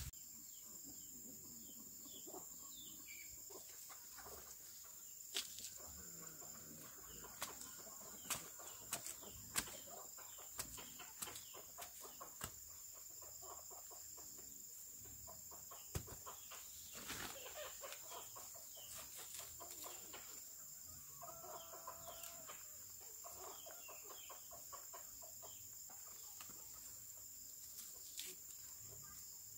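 Chickens clucking in the background, with occasional sharp knocks and snaps from a hand tool cutting and digging taro plants, over a steady high insect drone.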